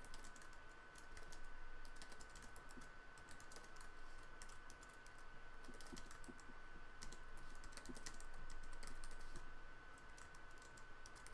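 Typing on a computer keyboard: a run of faint, quick, irregular key clicks, with a steady high-pitched tone underneath.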